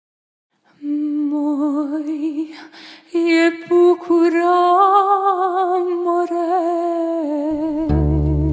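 A woman's solo voice singing an old Albanian folk song unaccompanied, in long held notes with a wide vibrato and a short breath pause about three seconds in. Near the end, plucked strings of the guitars and oud come in underneath.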